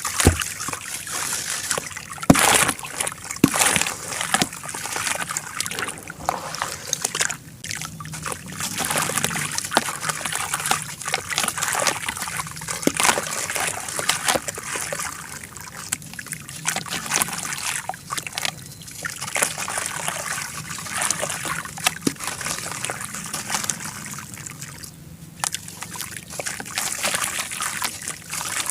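Charcoal being crumbled by hand in water: dense, gritty crackling and crunching with many sharp snaps, mixed with sloshing and dribbling water.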